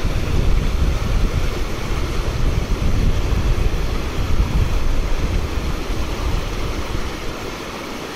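Rushing river water with wind buffeting the microphone: a steady rushing noise under an uneven low rumble, easing slightly near the end.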